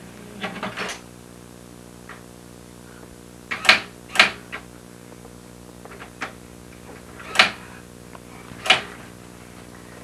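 Electric typewriter printing as small hands hit its keys: a handful of sharp, irregular clacks, four of them loud, over a steady low hum.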